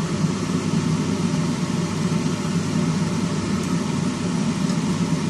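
A steady machine hum with a faint hiss, unchanging throughout, with a few faint ticks near the end.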